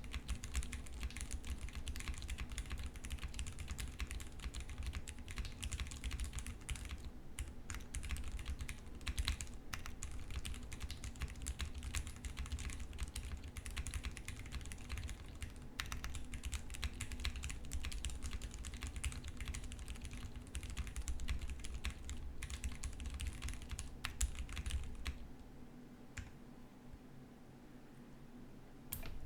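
A custom mechanical keyboard with lubed Cherry MX Brown tactile switches on an FR4 plate with GMK keycaps, typed on in a quick, steady run of key clicks. The sound is soft and muted, from a heavily flex-cut PCB with a tape mod. The typing stops about 25 seconds in, and one more click comes near the end.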